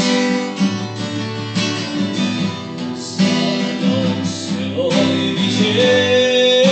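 Song music with strummed acoustic guitar chords, the chords changing about once a second, and a sustained melody note coming in near the end.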